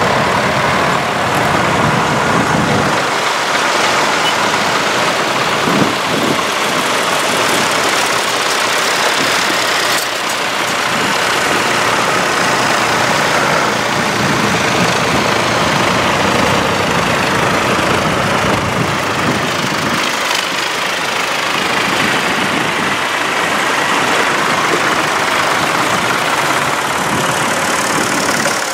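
A line of tractors driving slowly past one after another, their engines running steadily.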